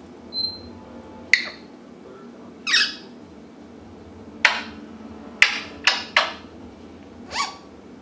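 African grey parrot giving a series of short, sharp calls, about eight in all, spaced irregularly. One call about three seconds in is a little longer, with a wavering pitch.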